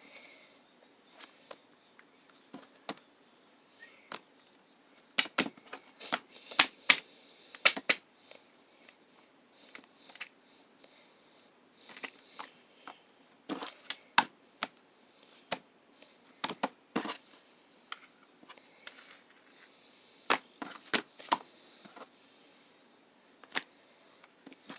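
Slime being pressed and stretched by hand, giving clusters of sharp little pops and clicks with short quiet gaps between them.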